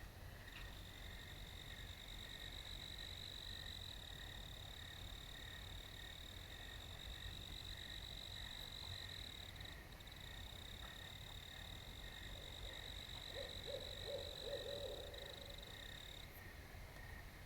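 Faint night chorus in a meadow: a steady high-pitched trill that breaks once briefly and stops shortly before the end, over a softer evenly pulsing call. About two thirds of the way in, a short low stuttering call is the loudest moment.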